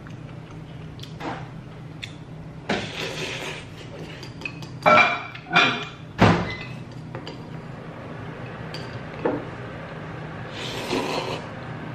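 A man eating noodle soup: a long slurp of noodles, then three sharp coughs a little past the middle, then another slurp. Light clinks of wooden chopsticks and spoon against a ceramic bowl.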